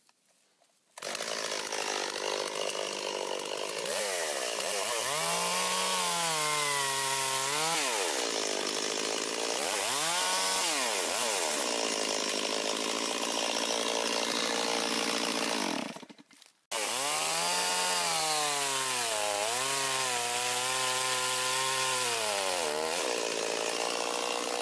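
Two-stroke chainsaw running at high revs as it plunges into wood for a bore cut, its engine pitch sagging under load and climbing again several times. It starts about a second in and cuts out abruptly for a moment about 16 seconds in before running on.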